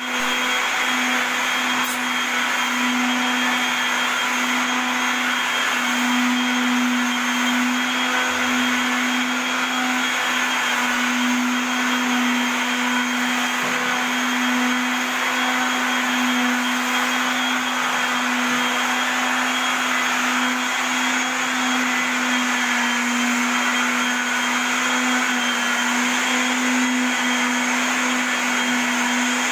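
Small electric palm sander running steadily on wooden floorboards: a constant motor hum with the hiss of the sanding pad on the wood.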